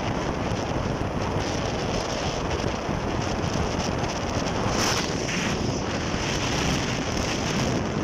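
Wind rushing over the microphone of a moving vehicle, a steady roar of noise with a brief brighter hiss about five seconds in.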